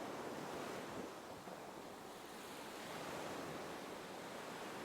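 Faint ocean waves washing gently, a soft steady surf that swells and eases slowly.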